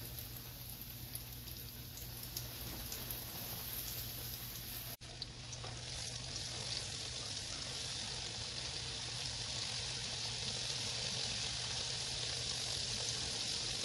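Flour-coated pork spare ribs frying in hot oil, a steady sizzle. After a brief drop about five seconds in, the sizzle is louder and steadier.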